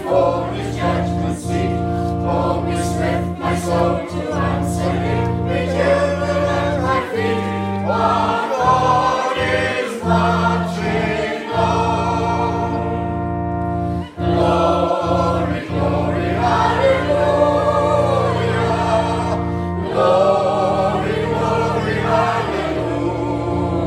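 A congregation singing a hymn together, many men's and women's voices, over steady held low notes.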